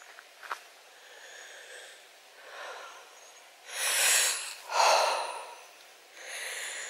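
A person breathing heavily close to the microphone: faint breaths, then two loud, hissy breaths in and out about four and five seconds in, and a softer one near the end.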